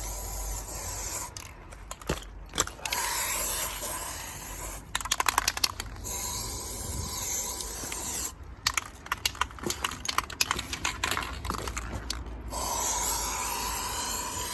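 Aerosol line-marking paint spraying the trench centre line on the ground, in several long hisses lasting a couple of seconds each. Between the hisses come bursts of rapid rattling clicks.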